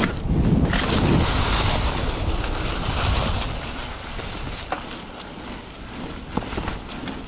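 Wind rushing over a GoPro microphone while a mountain bike rolls fast down a leaf-strewn dirt trail, with tyre noise and a few sharp knocks from the bike. The rushing is loudest for the first three seconds or so, then eases off as the speed drops.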